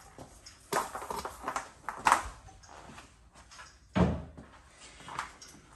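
Knocks and scraping handling noises, with a sharp knock about two seconds in and a dull thump about four seconds in, as equipment and its cord are moved and dragged out of the room.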